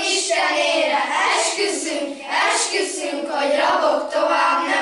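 A group of children singing together, their voices held and gliding without a break.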